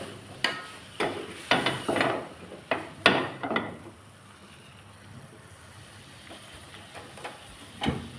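Kitchenware being handled: a quick run of about seven sharp knocks and clinks, some ringing briefly, then a quiet stretch and a single knock near the end.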